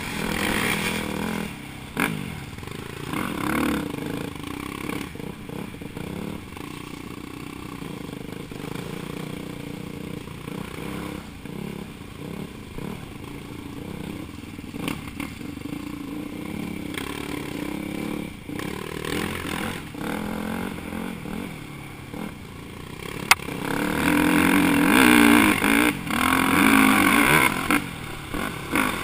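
Dirt bike engine running under changing throttle while riding a rough trail, heard from a helmet camera, with clatter and scraping of the bike over the ground. Near the end the throttle opens up and the engine runs louder for a few seconds.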